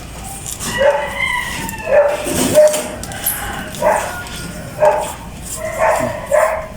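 A dog barking and yipping repeatedly, about six short barks spread over several seconds.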